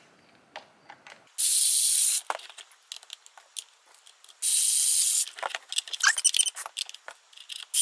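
Toy power drill from a Design & Drill Bolt Buddies set running in two short bursts of high whirring, each under a second, as it drives plastic bolts into the rocket's wings. Plastic parts click and knock between the bursts.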